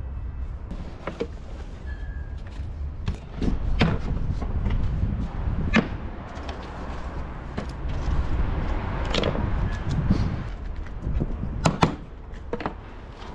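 Scattered sharp knocks and clicks over a steady low rumble, with the loudest two close together near the end.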